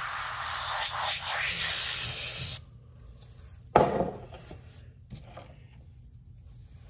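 A foam sprayer spraying cleaning foam onto a lawn mower wheel's hub for about two and a half seconds, then stopping abruptly. A single sharp knock follows about a second later.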